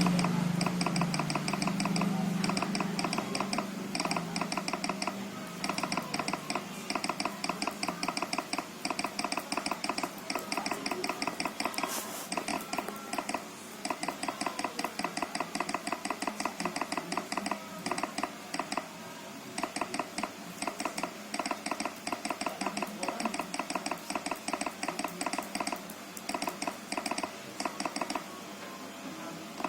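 Fast, continuous clicking of laptop keys being typed on, with a few short pauses and one sharper click about twelve seconds in.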